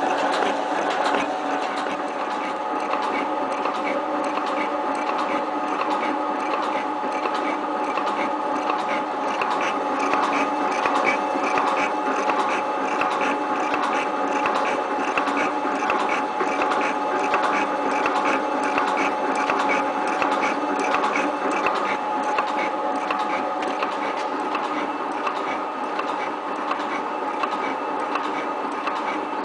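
7305T metal shaping machine running, with a steady gear whine and fine mechanical clatter.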